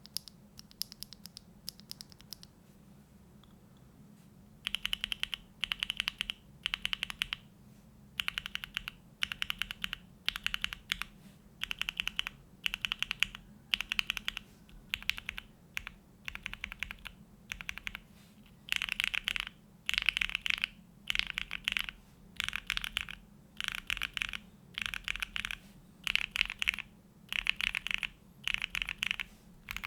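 Neo65 mechanical keyboard, built plateless with no foam, with hand-lubed Gateron Box Ink Black V2 linear switches under JTK and GMK keycaps, being typed on. A few light keystrokes come first, then from about five seconds in there are quick bursts of keystrokes, each under a second, with short pauses between.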